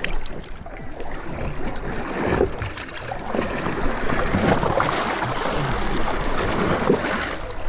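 Choppy sea water splashing and sloshing against the stern of a small boat, with a few short knocks and rustles from handling at the transom.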